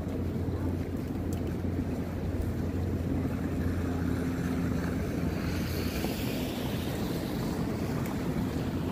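Steady low outdoor rumble of street noise with wind on the microphone; a hiss swells and fades about six seconds in.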